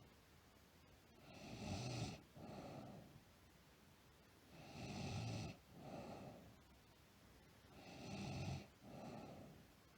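A girl snoring in her sleep, faint and slow and regular. Three breaths, each a louder snore followed at once by a shorter, softer one, come about three seconds apart.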